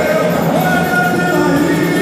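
Live samba-enredo: singing over a samba school's drum section, played loud and steady.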